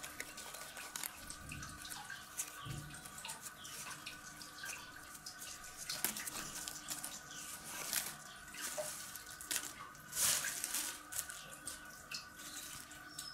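Faint crisp rustling and small irregular clicks of stiff olive leaves and twigs being handled and woven by hand, with a few louder crackly rustles in the second half, over a faint steady hum.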